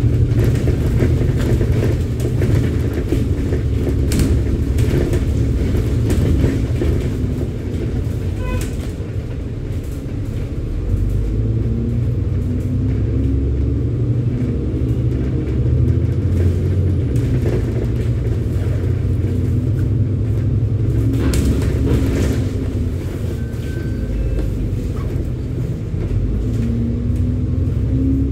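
A bus's diesel engine running as it drives, heard from inside the cabin: a heavy low rumble whose engine note rises and falls with the driving, with a few short knocks and rattles.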